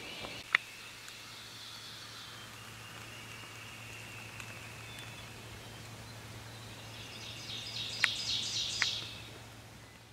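Dawn woodland ambience with faint high bird song, a louder burst of rapid, high-pitched songbird notes about seven to nine seconds in, and a few sharp clicks. The sound fades out at the end.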